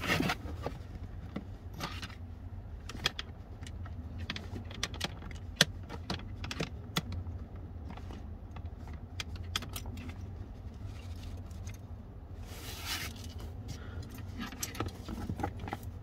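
Small plastic clicks, taps and rustles of hands working in a car's under-dash fuse box, pushing a fuse tap back into its slot and handling its wires, with a brief rustle near the end. A low steady hum runs underneath.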